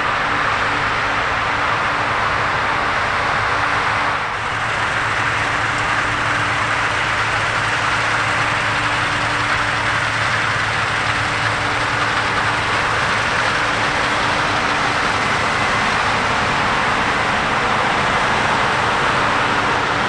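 New Holland CR10.90 tracked combine harvester running while cutting wheat: a steady mechanical drone with a constant low hum under a broad rushing noise, with a brief dip about four seconds in.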